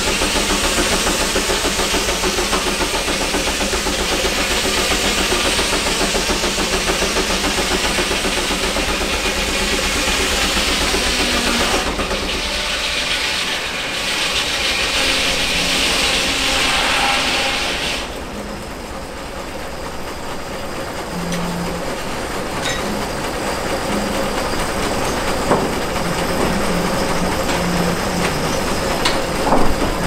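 Steam engine driving a sawmill, the machinery running steadily with a loud hiss of steam that cuts off about eighteen seconds in, leaving the mill running more quietly. A couple of sharp knocks come in the last few seconds.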